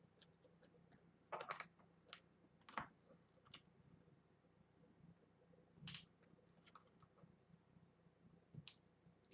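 Faint, scattered clicks and scrapes of a screwdriver and small screws as the screws are worked out of a laptop's bottom panel, a brief cluster about a second and a half in and single clicks after.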